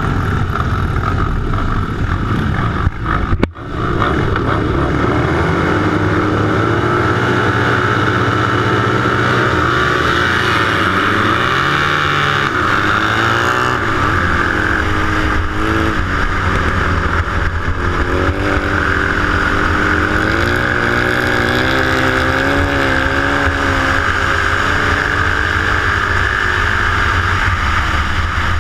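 Racing motorcycle engines heard from on board: a steady run at the start line, a sudden break about three seconds in as the race gets away, then revs climbing and falling repeatedly as the bike accelerates down the straights and through the turns of the dirt oval.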